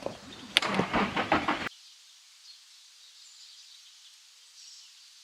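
A car pulling up, with sharp clicks of its doors and handles, cut off suddenly less than two seconds in. After that there is only faint hiss.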